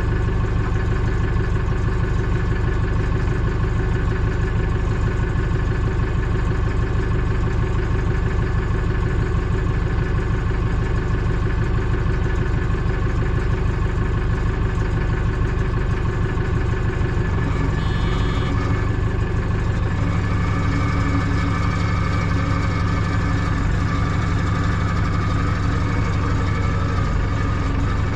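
Diesel engine of the lifting machine running steadily at idle, its note changing about two-thirds of the way through.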